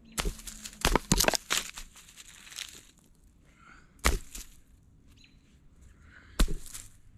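Hand-tool digging: a tool striking sharply into the ground, several quick strikes in the first two seconds or so, then a single strike about four seconds in and another near the end.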